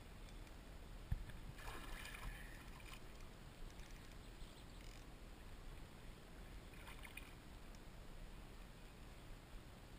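Water splashing and swirling at the surface as a small hooked pike thrashes on an ultralight rod, in two short bouts, about two seconds in and again about seven seconds in. A single thump comes about a second in, over a low steady rumble.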